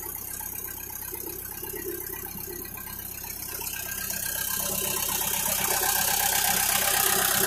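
A belt loader's engine idling steadily, with a low hum that grows gradually louder over the second half.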